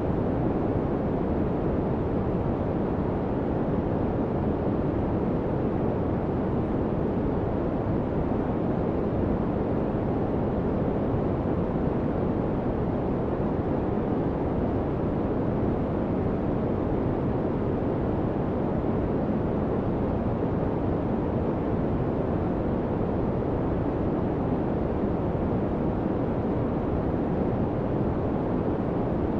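Steady white-noise masking track, a deep, even rushing hiss with little treble that does not change.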